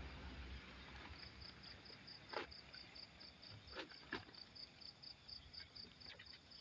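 Faint insect chirping, likely a cricket: a high, evenly pulsed trill that starts about a second in. A few faint clicks are heard around the middle.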